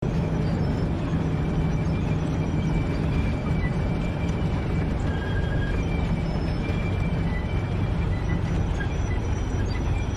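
Heavy opencast mining machinery running steadily: a continuous rumble over a deep hum, with high thin metallic squeals coming and going.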